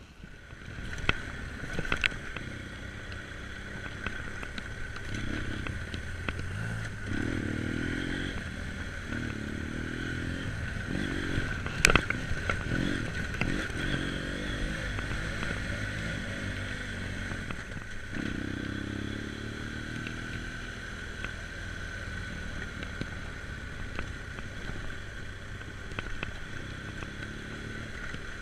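Twin-cylinder BMW GS adventure motorcycle riding along a rutted dirt lane, the engine rising and falling in pitch as it accelerates and eases off. Sharp knocks and clatters come from the bike jolting over bumps, the loudest about twelve seconds in.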